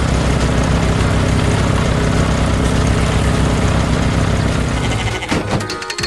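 Tractor engine running steadily at an even pitch, cutting off near the end as music begins.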